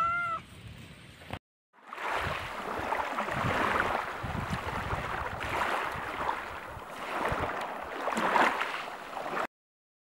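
A domestic cat meows once, a short call that rises and then falls in pitch, right at the start. After a brief break, a rushing, crackling noise with scattered low knocks runs through most of the rest and cuts off suddenly near the end.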